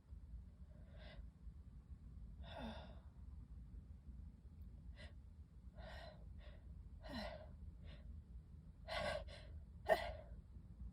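A woman's hitching, gasping pre-sneeze breaths as an allergic sneeze builds, from dusty books. About ten short gasps come in an uneven series, growing louder toward the end, with a sharp, loudest burst about ten seconds in.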